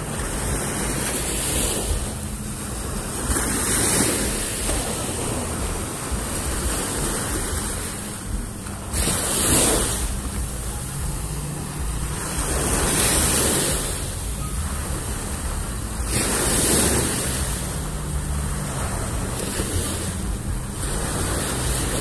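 Small waves breaking and washing up the sand, swelling in surges every few seconds, over a low steady hum from the rescue boat's outboard motor idling as the boat comes in onto the beach.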